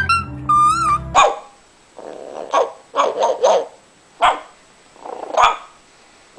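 Music with a wavering, whistle-like melody that cuts off about a second in, followed by a string of short barks: a single bark, then a quick run of three, then two more spaced single barks.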